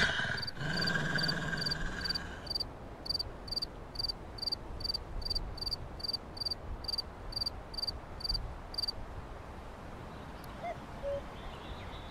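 Outdoor nature ambience: a short, high chirp repeated evenly about twice a second for the first nine seconds or so, from a calling insect or small bird, over a low steady background. A held sound fades out in the first couple of seconds, and a few soft, low calls come near the end.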